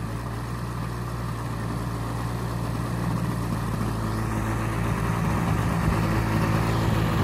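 DA-200 four-cylinder boxer gasoline engine of a 40% scale model aerobatic plane idling steadily on the ground, propeller turning.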